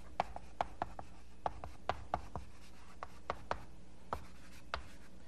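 Chalk writing on a blackboard: a run of sharp, irregular taps and short scrapes, a few every second, over a faint steady hum.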